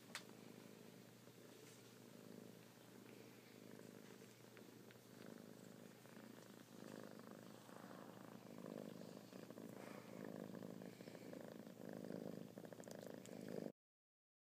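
A cat purring softly and steadily, the purr growing fuller in the second half. A single click right at the start, and the sound cuts off suddenly just before the end.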